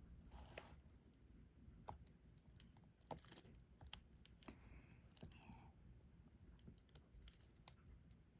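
Faint, irregular little clicks and taps of a diamond-painting stylus picking up resin drills from the tray and pressing them onto the sticky canvas, a few every couple of seconds, with a soft rattle of drills about halfway through.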